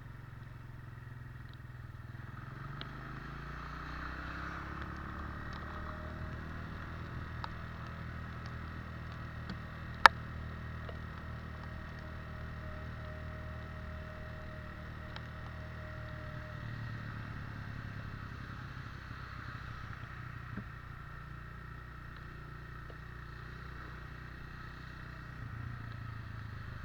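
Motorcycle engine running on the move through rain, picking up speed about two to five seconds in, over a steady hiss of the wet road. One sharp, loud click about ten seconds in.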